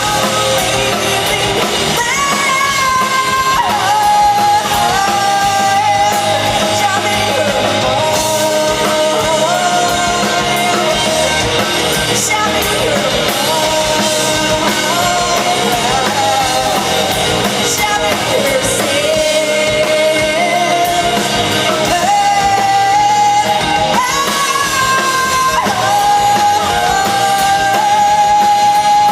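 Live rock band playing a song, with a singer holding long notes that step up and down in pitch over the full band.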